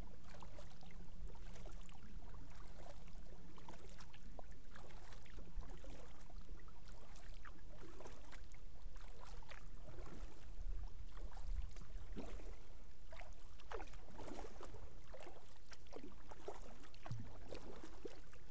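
Kayak paddle blades dipping into and pulling through calm river water, with irregular splashes and drips, over a steady low rumble.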